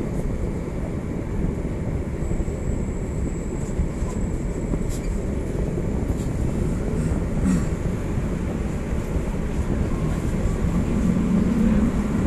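Coupled PCC trams heard from the driver's cab, moving off and running along the track with a steady low rumble. A thin high whistle sounds for a few seconds from about two seconds in, there are a couple of clicks, and a low motor hum grows louder near the end as the tram gathers speed.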